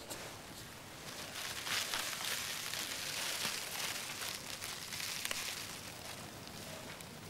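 A steady, soft rustling hiss with faint scattered ticks, swelling slightly about two seconds in.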